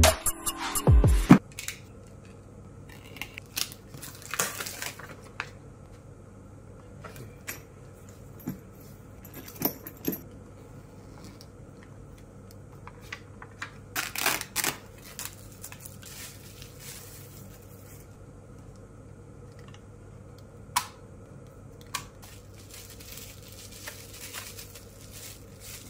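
Hands unpacking a drone kit: scattered clicks, taps and rustles as a carrying case, a remote controller and bubble-wrapped parts are handled and set down, over a steady low hum. A short loud intro sting opens it.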